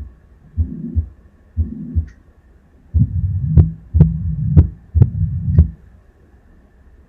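Simulated heart sounds of mitral stenosis with tricuspid regurgitation from a cardiac auscultation simulator, heard through the stethoscope: about one beat a second, each beat two sharp low tones with a murmur between them. About three seconds in the beats grow louder, with a continuous murmur between sharp snapping tones, then the sound stops near the end.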